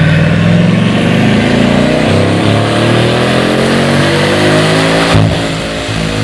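Car engine accelerating hard, its pitch climbing steadily for about five seconds, then breaking off and settling at a lower, steadier pitch.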